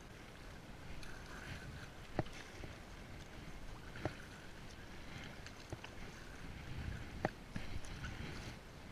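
Double-bladed paddle working an inflatable kayak on the sea: a steady wash of water and wind, with a sharp tap about every one and a half to two seconds, roughly in time with the strokes.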